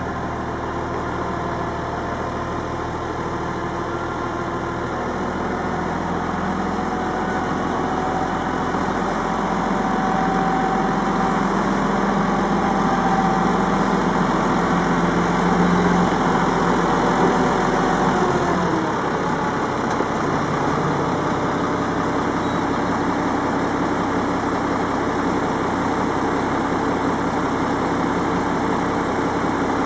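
Tractor diesel engine running while the tractor manoeuvres slowly in reverse toward an implement, getting louder over the first half. About two-thirds of the way through the engine speed falls away and it settles to a steady idle.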